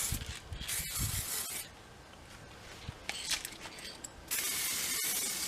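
Aerosol spray-paint can hissing in bursts: one of about a second and a half at the start, a short squirt near the three-second mark, and a longer spray from just past four seconds on.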